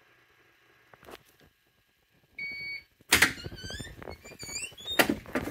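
Beckman Allegra X-22 centrifuge at rest after a run: a short electronic beep, then a loud clunk as the lid latch releases and the lid is opened. A string of rising squeaks follows, then another clunk near the end.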